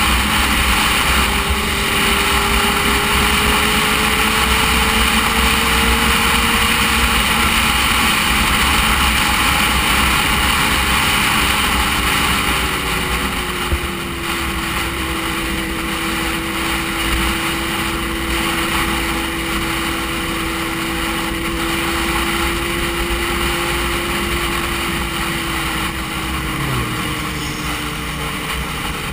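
Motorcycle engine running at steady road speed under heavy wind and road noise on a bike-mounted camera. The engine note settles a little lower about halfway through as the bike eases off.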